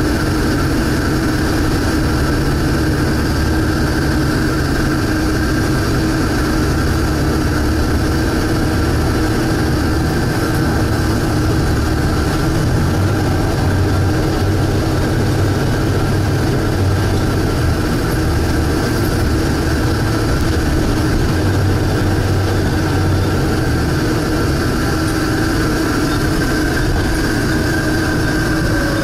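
Volvo B7TL double-decker bus's diesel engine running steadily, heard from on board, with a low rumble that slowly swells and eases and a steady high whine above it.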